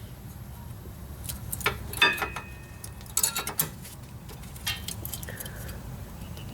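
Scattered metallic clinks and taps of a rear brake pad and its clip knocking against the caliper bracket as it is pushed in and refuses to seat. The loudest clink comes about two seconds in with a short ring, and there is a quick cluster a second later.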